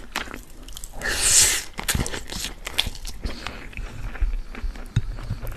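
Close-miked eating sounds: a mouthful of chicken kabsa rice being chewed, with wet mouth clicks and small crackles throughout. A short hissing sound comes about a second in.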